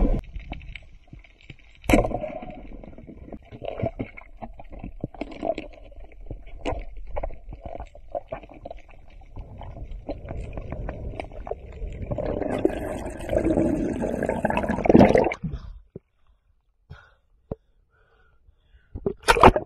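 Water sound picked up by a diver's camera underwater: muffled rumbling and gurgling with many irregular sharp clicks and crackles. A louder rush of water runs for about three seconds, then the sound drops almost to silence, and a sudden splash-like burst comes right at the end.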